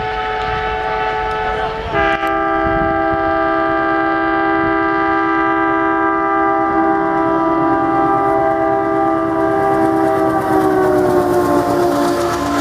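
Original ALCo air horn of a WDM-3A diesel locomotive sounding one long continuous multi-note blast. About two seconds in it jumps louder to a fuller chord, and near the end the whole chord falls in pitch.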